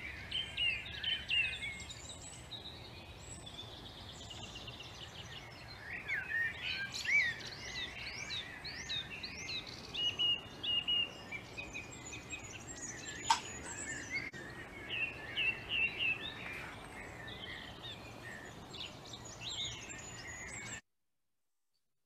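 A song thrush singing in the distance, repeating each short phrase before moving on to another, among a busy chorus of other songbirds' chirps and calls. There is a faint low rumble of outdoor noise and a single sharp click about halfway through. The sound stops abruptly about a second before the end.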